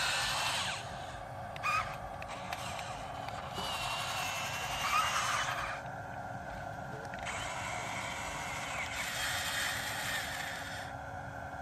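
Small electric gear motors of a toy RC excavator whirring in spurts: the louder whir switches on and off three times over a steady lower hum.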